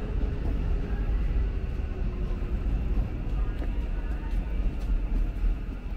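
Deep, steady rumble of a passing vehicle in street ambience, with faint whining tones that fade over the first few seconds.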